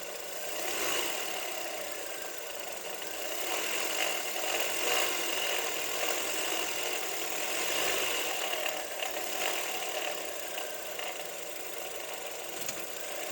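Toyota Wish 1.8 engine (2ZR) idling with a steady noise from the top of the engine. The mechanic traces it to a failing alternator overrunning-clutch pulley, which also gives a belt-slipping sound.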